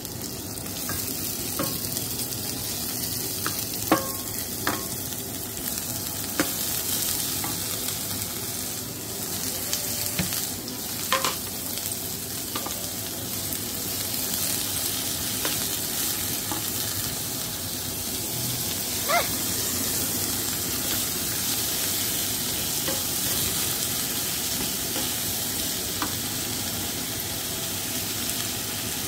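Oil sizzling steadily in a frying pan of sliced onion, garlic and bell pepper strips, stirred with a wooden spatula. A few sharp knocks come as the spatula hits the pan, most of them in the first half.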